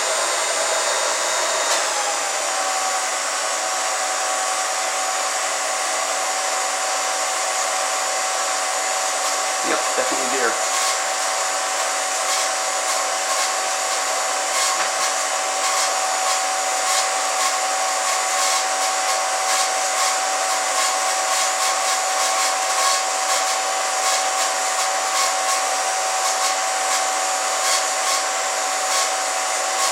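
Film projector running: a steady motor-and-fan whir with a constant tone that settles in pitch about two seconds in. From about eleven seconds on, scattered clicks come from the film running through.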